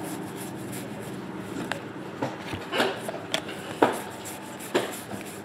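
Trading cards being handled and flipped over, with short rubs and light taps as each card is slid off the pile and set down on a stack.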